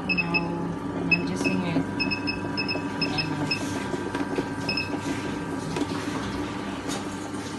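Ultra tabletop wet grinder running steadily, its stones grinding soaked urad dal into batter. A run of short high beeps sounds in the first four seconds and once more about five seconds in: the grinder's timer beeping.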